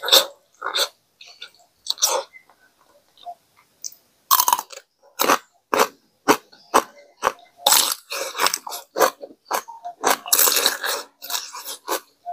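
Crisp bites and crunchy chewing of raw cucumber close to a clip-on microphone, in irregular clusters of crackly crunches with short pauses between, densest about four seconds in and again from about eight to eleven seconds.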